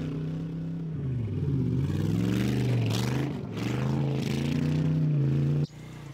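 Cruiser motorcycle engine running and revving, its pitch dipping and climbing again several times, then cutting off abruptly near the end.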